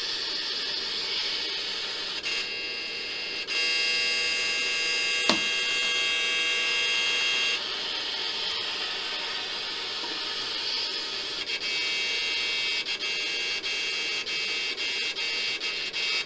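Static hiss from a DIY FM radio kit's small speaker, with no station tuned in. A cluster of steady whining tones sits over the hiss from about three and a half to seven and a half seconds, with a single sharp click near five seconds, and in the last few seconds the hiss breaks up into rapid short dropouts.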